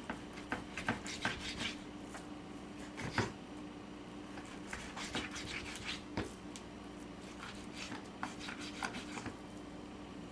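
Knife cutting raw meat on a cutting board, with irregular taps and knocks, some in quick clusters, over a steady low hum.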